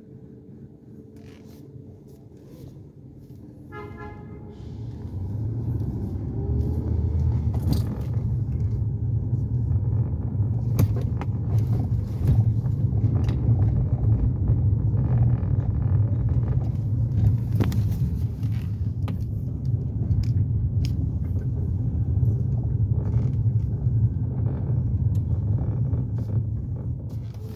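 A car running with a steady low rumble that sets in about five seconds in, with scattered clicks and knocks over it. A brief tone sounds just before the rumble starts. The car is recorded to show the noise it is making.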